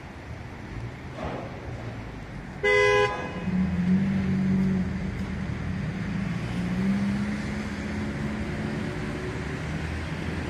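A vehicle horn sounds one short blast about three seconds in, over city traffic noise. After the horn a vehicle engine runs with a steady low hum.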